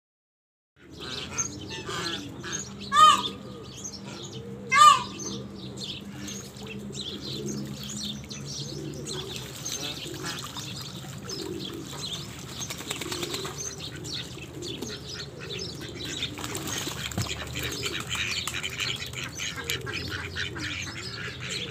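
Ducks splashing and bathing in a small pool, with birds chirping and calling around them. Two loud, short, high-pitched bird calls stand out, about 3 and 5 seconds in.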